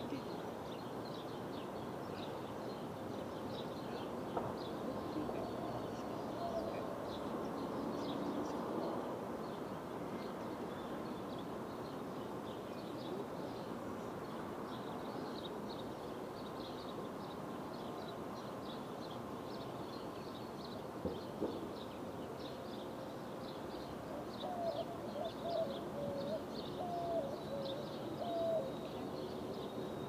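Outdoor background noise with small birds chirping on and off throughout, and a few short, lower, wavering calls at about a quarter of the way in and again near the end.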